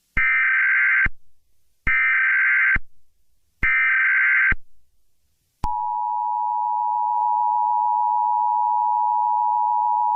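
Emergency Alert System tones: three roughly one-second bursts of SAME header data, then about five and a half seconds in the steady two-tone attention signal (853 and 960 Hz) starts and holds. The alert heralds a National Weather Service tornado warning.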